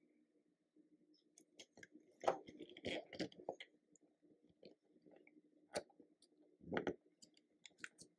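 Faint, scattered plastic clicks and taps from a small toy front end loader being handled and pushed into Play-Doh rocks, a few in quick clusters.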